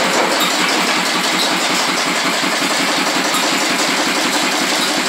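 A 5 hp Stover diesel engine running the blacksmith shop's line-shaft, with belts and power-hammer machinery turning: a steady, rapid mechanical beat.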